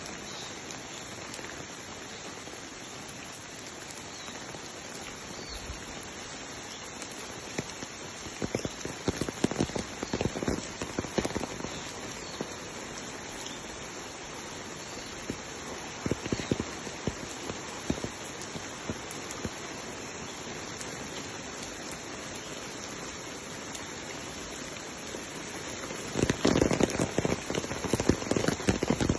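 Steady rain falling, an even hiss of drops hitting surfaces. It is broken by spells of louder, close drop impacts about a third of the way in, briefly around the middle, and again near the end.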